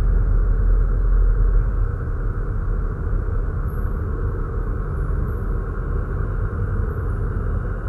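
Loud, steady low rumbling drone with no distinct notes or beats, easing slightly about two seconds in.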